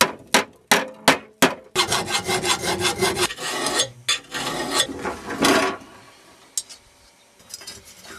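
A hammer striking the underside of a lawnmower's steel deck, about five sharp taps, followed by several seconds of rough, rapid scraping on rusty metal.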